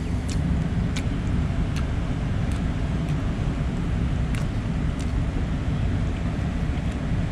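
Steady low vehicle rumble, with a few light clicks scattered through it.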